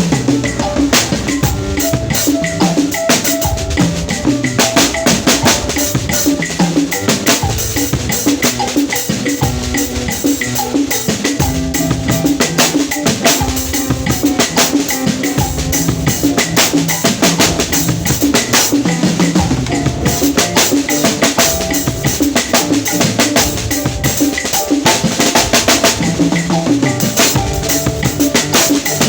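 Drum kit played continuously in a busy, fast pattern on kick, snare and cymbals, with some held pitched notes under the drums.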